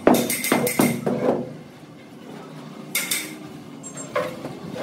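Knocking from tools during cement screed work: a rapid, even run of knocks, about four a second, stops about a second and a half in. A brief scrape and a thump follow near the end.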